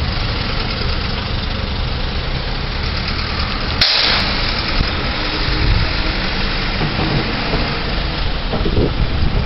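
Heavy truck engines running as snow-clearing trucks move along the street. About four seconds in there is a brief burst of hiss, opened and closed by a click.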